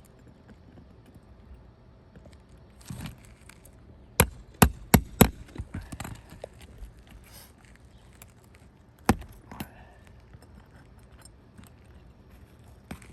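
Shingle-removal tool knocking at roofing nails under old, brittle roof shingles: four sharp knocks in quick succession about four seconds in, and one more about five seconds later.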